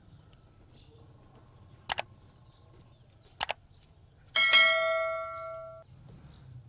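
Sound effects of a subscribe-reminder animation: two sharp clicks, then a loud bell ding from the notification-bell icon about four seconds in, ringing out for about a second and a half.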